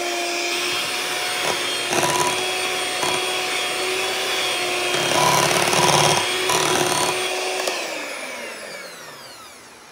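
Electric hand mixer running in a glass bowl of thick cream-cheese batter: a steady motor whine, with the beaters knocking against the bowl several times. Near the end it is switched off and the whine falls in pitch as the motor spins down.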